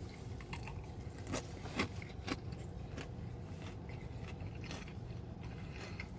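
Bite and chewing of a fried chicken tender with a pickle, heard as a few crisp crunches in the first couple of seconds, then softer, scattered chewing clicks over a low hum.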